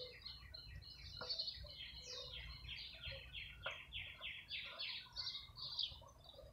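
A songbird singing a fast run of short repeated chirping notes, about four or five a second, with a faint knock or two.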